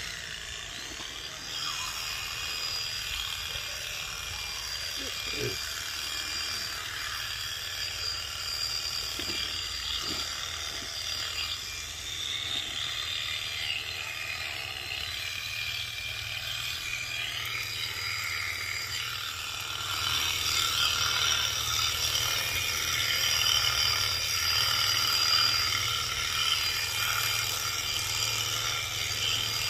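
Power sheep-shearing handpiece running steadily with a high whir as it cuts through a sheep's fleece. It grows louder about two-thirds of the way through.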